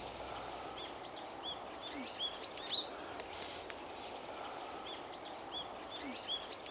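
Small birds chirping, many short repeated calls, over a steady outdoor background noise.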